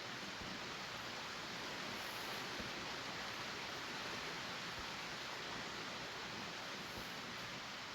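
Steady rain falling, an even hiss with a few faint low thuds.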